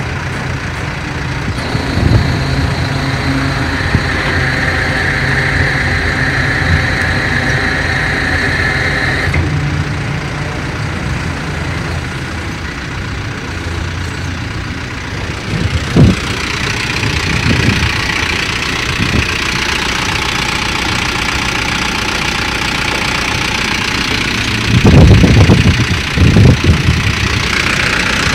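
A vehicle engine idling steadily. A higher whine joins it for several seconds near the start, there is a sharp knock about halfway through, and several loud thuds come near the end.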